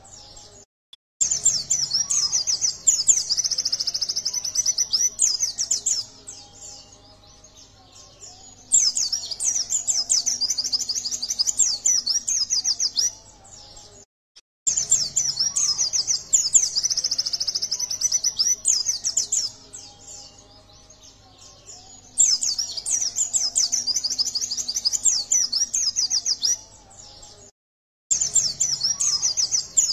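A caged white-eye singing a fast, high twittering chirp song. It comes in bursts of about four to five seconds, with quieter pauses between them.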